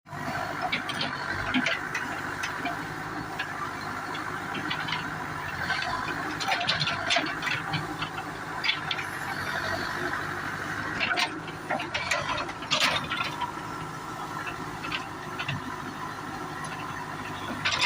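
Backhoe loader's diesel engine running steadily, with repeated metallic clanks and rattles from the working machine.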